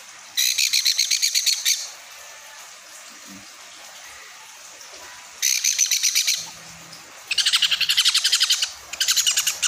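Baby sun conure chick giving its food-begging calls while being hand-fed: four bursts of rapid, high, pulsed chattering, about ten pulses a second, each lasting one to one and a half seconds, the last two close together near the end.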